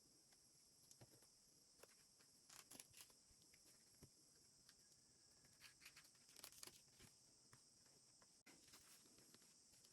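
Near silence: a steady faint hiss with scattered small clicks and short rustles, the sound of light handling.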